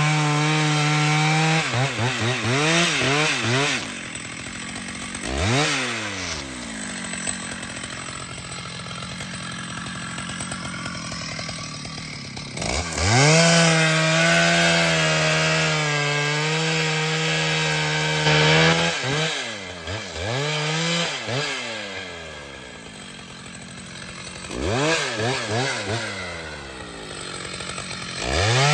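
Two-stroke chainsaw cutting timber, held at full throttle near the start and again for about five seconds in the middle. Between the cuts it is revved up and down several times in quick blips and drops back to a quieter idle.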